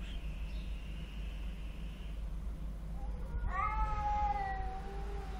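Street cats yowling in a face-off before a fight: a thin, high, drawn-out whine over the first two seconds, then a long caterwaul starting about three seconds in that rises sharply and slowly slides down in pitch. A steady low rumble runs underneath.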